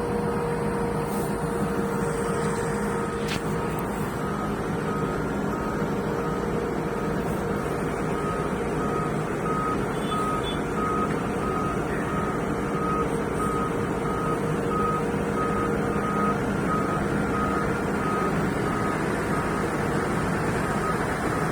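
Heavy machine's reversing alarm beeping at an even pace over the steady running of its diesel engine.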